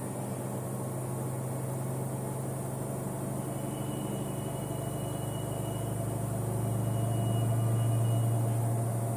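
Samsung front-load washing machine running with a steady low hum that swells about seven seconds in, with a faint high whine through the middle.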